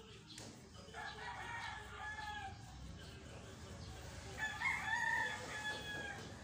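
A rooster crowing twice, two drawn-out calls a few seconds apart, the second louder.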